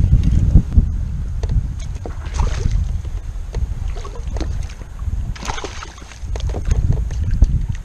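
Wind buffeting the microphone with a low rumble, loudest in the first second, while a hooked fish thrashes and splashes at the surface beside a kayak, with splashes about two and a half and five and a half seconds in.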